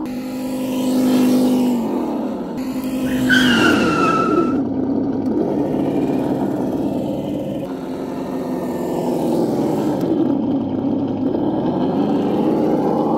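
Simulated V8 engine sound, the kind an RC crawler's sound module plays: a steady engine note that drops in pitch about two seconds in, then runs on as a rough rumble. A short squeal falls in pitch about three seconds in.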